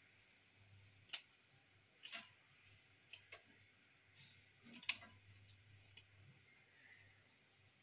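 Kitchen scissors snipping through raw prawn shells, cutting along the back to get at the intestine: about seven faint, sharp clicks at uneven intervals, the loudest a double snip near five seconds in.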